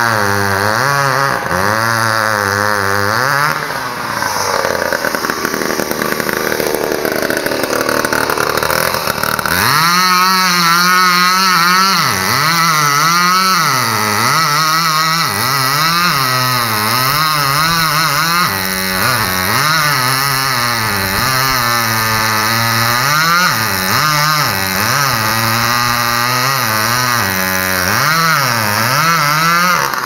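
Chainsaw cutting through a large tree trunk in a felling cut behind the notch. The engine's pitch rises and falls over and over as the chain bites into the wood and frees up again.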